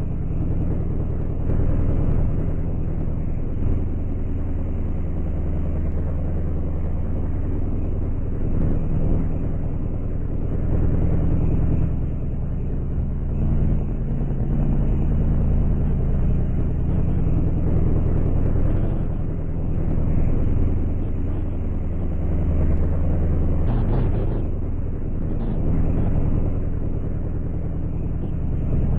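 A motor vehicle engine running steadily with a low hum, its loudness swelling and easing a little. There are a few brief clicks near the end.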